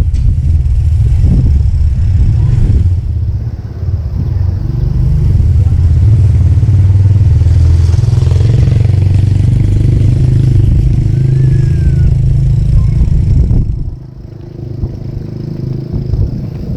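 Loud low rumble of wind buffeting the camera microphone while cycling along a road, mixed with passing motor traffic. The rumble drops off suddenly near the end.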